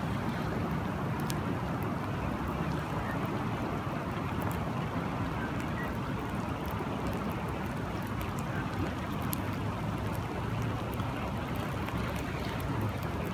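Steady wash of rain and flowing river water, with scattered faint ticks of drops.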